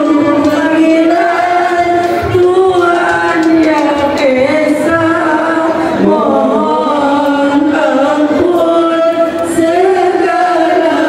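A group of voices chanting devotional verses together in unison, holding long notes that slide slowly up and down.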